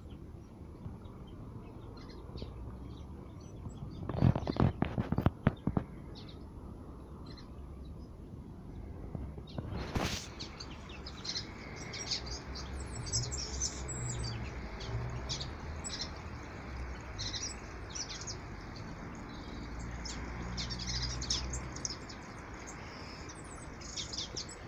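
Small aviary waxbills and finches chirping, many short high calls that grow busier about halfway through. A brief burst of clatter or rustling about four seconds in is the loudest sound.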